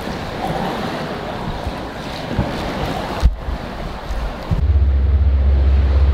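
Rushing river water inside a dark tunnel, a steady noisy wash. From about four and a half seconds in, a louder low rumble of wind buffeting the microphone joins it.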